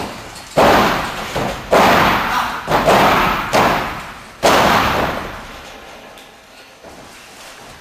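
Five heavy thuds on the wrestling ring's mat about a second apart, each echoing through the hall, then quieter after about four and a half seconds.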